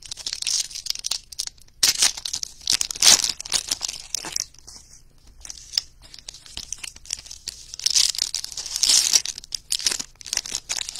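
Wrappers of 2021 Panini Diamond Kings baseball card packs being torn open and crinkled by hand, in three rustling bursts with a quieter lull in the middle.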